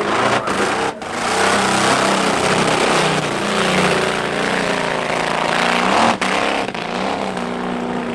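Hot-rod street roadster's engine revving hard on a quarter-mile drag run, the pitch climbing and shifting. The sound dips briefly twice, about a second in and again about six seconds in.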